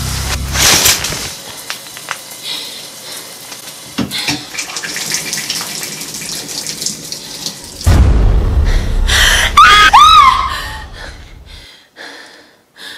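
Shower water running steadily behind a curtain. About eight seconds in a loud low rumble swells, and over it comes a woman's scream that rises and falls, before everything cuts off sharply.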